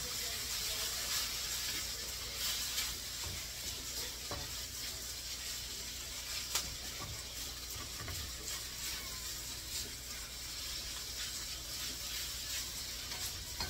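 Rice noodles sizzling in an oiled wok over a gas flame, with the scrape and knock of a wooden spatula turning them. One sharp knock about six and a half seconds in.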